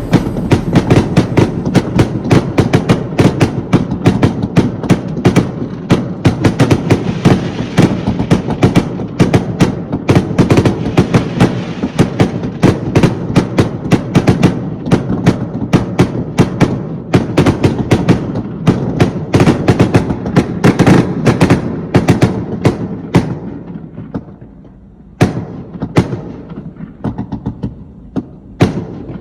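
Consumer fireworks going off: a rapid, dense run of sharp pops and crackles, several a second, that thins to scattered pops near the end.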